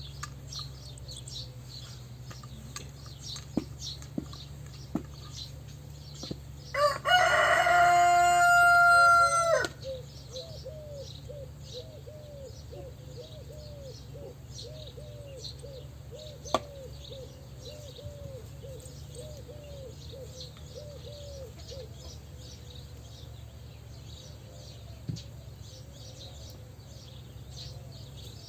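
A rooster crows once, a loud call about three seconds long that starts about seven seconds in. It is followed by soft, repeated clucking, about two a second, that fades out near the end. Small birds chirp faintly throughout.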